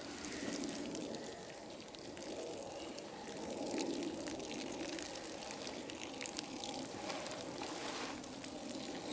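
Garden hose spraying a steady stream of water onto a pine bark mulch bed, a continuous splashing.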